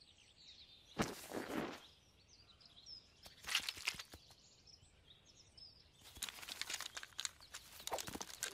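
Cartoon sound effects over faint birdsong: a short sharp rustle about a second in, then from about six seconds a rapid run of light taps and swishes from a skipping rope being turned and jumped.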